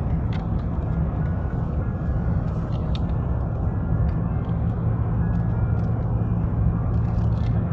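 Steady low rumble of an Airbus A350-900's Rolls-Royce Trent XWB engines and rushing air, heard inside the cabin on approach with the flaps extended, with a few faint ticks.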